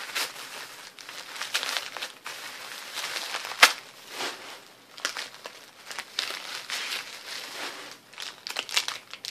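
Tissue paper crinkling and rustling as it is handled and unwrapped, in irregular bursts, with one sharp crackle about three and a half seconds in. Near the end a plastic wrapper crinkles in quick short rustles.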